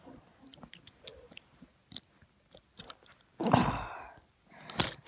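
Faint clicks and scrapes of a small nail being worked in a steel handcuff's keyhole. A louder breathy burst comes about three and a half seconds in, and a sharp knock near the end.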